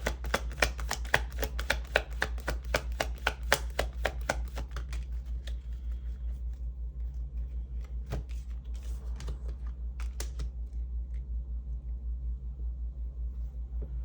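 Tarot cards being shuffled by hand: a quick run of crisp card clicks for the first few seconds, thinning out to a few scattered flicks, over a steady low hum.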